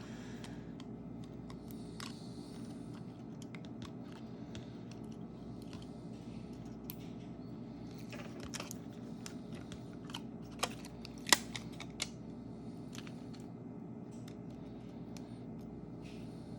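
Small clicks, taps and scrapes of fingers and tools on an iPhone 7 Plus home button and screen frame as it is worked back into place, over a steady background hum, with one sharp click about two-thirds of the way through.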